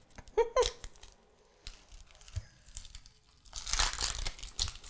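Dry, papery onion skin being peeled and torn off a whole onion by hand, crackling, loudest in a run of crinkling near the end. A short voice sound comes about half a second in.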